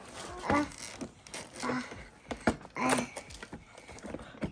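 Fingers pressing and picking at the perforated cardboard door of an advent calendar: scattered soft clicks, taps and scrapes.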